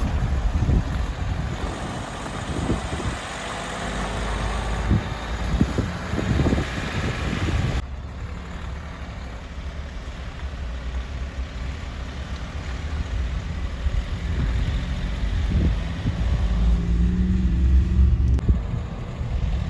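A vehicle driving on a rough road: a steady low rumble of engine and road noise with irregular low thumps. The sound changes abruptly about eight seconds in.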